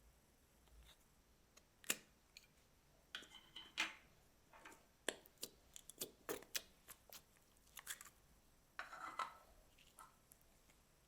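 Slime being worked by hand: scattered sharp clicks and crackles, with two short squishy bursts about three seconds in and about nine seconds in.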